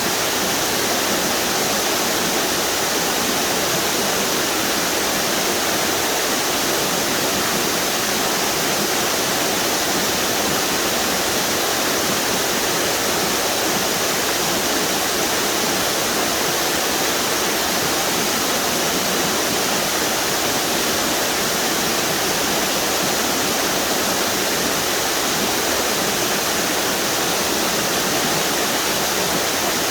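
A string of waterfalls on a river pouring steadily, an even rushing of falling water with no change.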